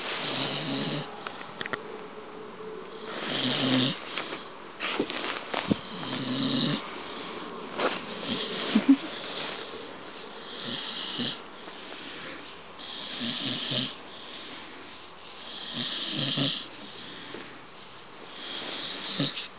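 Staffordshire Bull Terrier snoring while wide awake: snore-like breaths that repeat about every two to three seconds, some eight in all.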